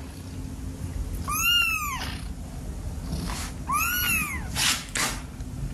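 A kitten meowing twice in high-pitched calls that rise and then fall, about two seconds apart. Two brief rustling noises follow near the end.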